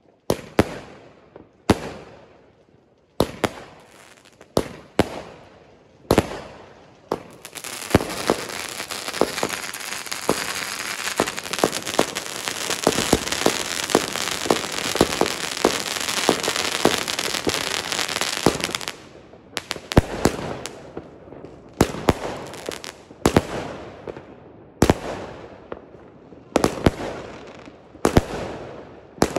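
Fireworks going off: separate sharp bangs, each with a fading echo. From about a quarter of the way in until about two-thirds through they give way to a dense, continuous crackling packed with rapid small pops, and then separate bangs resume.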